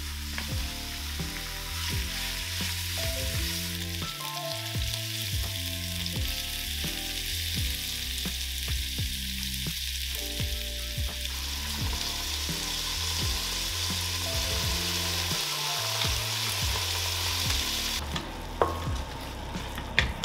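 Beef chunks sizzling steadily as they brown in hot oil in a stainless steel stockpot. Near the end the sizzle thins and a wooden spoon stirring the meat knocks against the pot a couple of times.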